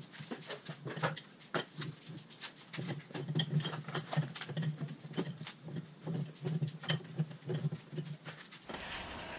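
Pipe wrench working the steel top cap of a bottle jack clamped in a bench vise, turning it loose: a run of irregular light metal clicks, taps and scrapes.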